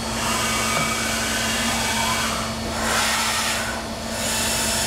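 Fadal VMC-6030 CNC vertical machining center running with a steady hum, broken by three bursts of rushing hiss.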